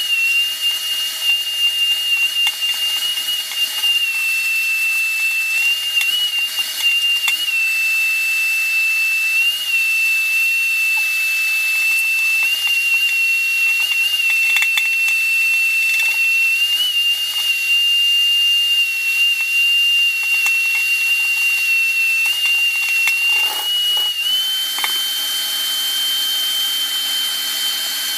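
Vacuum cleaner running with a steady high whine, sucking calcium scale out of an electric water heater tank through an improvised hose and PVC pipe, with occasional light clicks. About 24 seconds in, the whine steps up a little in pitch and a lower hum joins it.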